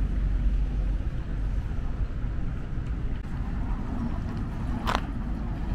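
City street ambience: a steady low rumble of traffic. A single sharp click or knock comes about five seconds in.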